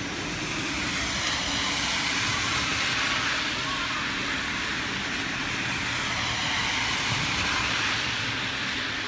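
Car tyres swishing on a rain-soaked street as a car passes, a steady hiss that swells about two to three seconds in and again near the end.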